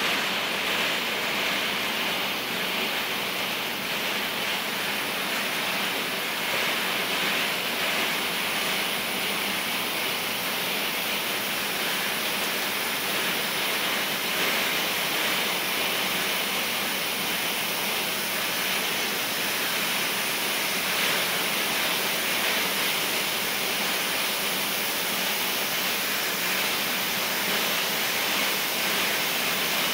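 Steady, even rushing noise with no distinct knocks, clicks or tones, unchanged in loudness throughout.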